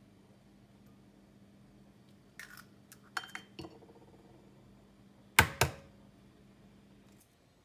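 Light clicks of eggshell handling, then an egg rapped twice sharply on the rim of a glass bowl to crack it, about five seconds in. A faint steady hum runs underneath and stops near the end.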